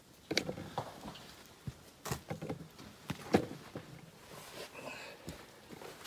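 Footsteps and scrambling over ice-covered rocks: irregular knocks and scrapes of boots on rock and ice, about half a dozen, with the sharpest about a third of the way in.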